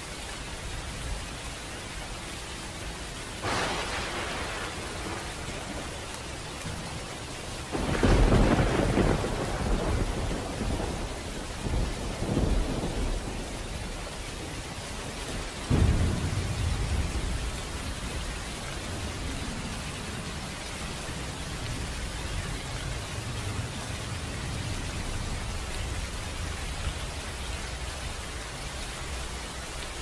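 Steady rain with rolling thunder: a peal about three and a half seconds in, the loudest crack and low rumble at about eight seconds rolling on for several seconds, another sudden peal at about sixteen seconds, then only the steady rain.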